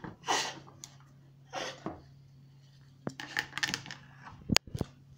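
A spoon scraping round a small bowl of chocolate frosting in two short strokes, then a run of clicks and a couple of sharp clinks of the spoon on the bowl near the end. A steady low hum lies underneath.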